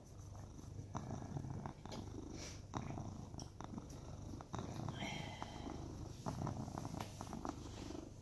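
Seal-point domestic cat purring loudly and continuously while being scratched under the chin, with a few faint clicks over the purr.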